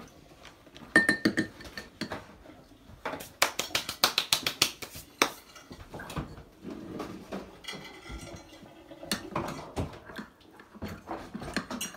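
Spoon clinking and tapping against a container in quick runs of sharp clicks while a cornstarch and cold-water slurry is made for gravy.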